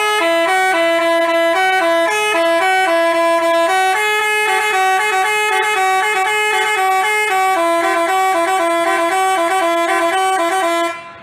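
Basuri telolet bus horn, a multi-trumpet musical horn, playing a melody of quick stepped notes in two voices. It stops shortly before the end.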